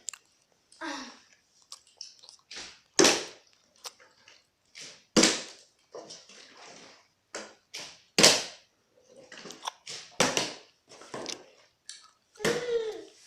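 Plastic bottle being flipped and landing again and again, a series of separate knocks a second or two apart, with a short child's cry near the end.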